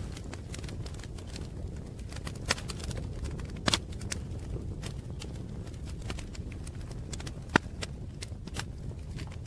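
Wood fire crackling: irregular sharp pops and snaps over a low steady rumble, with the loudest pop about seven and a half seconds in.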